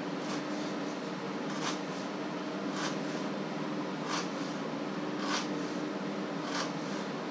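Knife slicing through food onto a wooden cutting board, one unhurried cut about every second and a quarter, six in all. A steady hum runs underneath.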